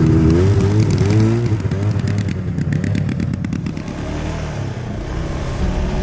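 Snowmobile engine revving up, rising in pitch as the sled pulls away, then dropping back with a fast ticking clatter.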